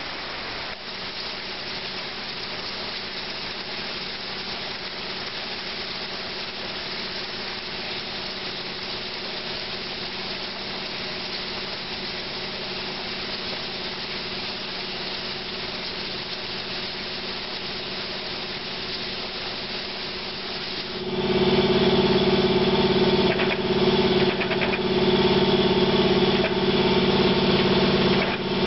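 Plasma cutting torch on a CNC plasma table hissing steadily at the steel plate. About three-quarters of the way through, a much louder steady buzzing hum sets in and carries on.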